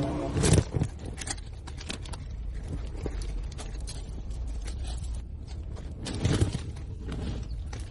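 Scattered metal clanks and knocks of hand work on a large dumper tire, over a steady low hum. Louder knocks come about half a second in and again around six seconds in.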